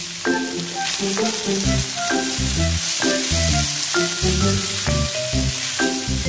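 Julienned jicama, carrots, green beans and ham sizzling as they are stir-fried with a spatula in a nonstick wok, with a steady hiss, over background music with a rhythmic bass line.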